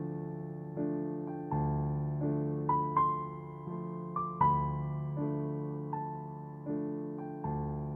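Background music: a gentle piano piece, single notes and chords struck about once or twice a second and left to fade.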